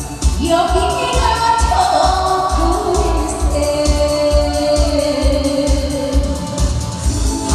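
A woman singing a Korean folk-song medley into a microphone with long held, sliding notes, over an amplified backing track with a steady bass beat about twice a second.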